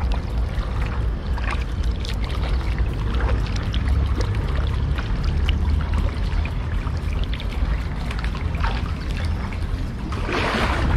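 Water splashing and trickling against a kayak's hull as it is paddled, over a steady low rumble, with a louder splash near the end.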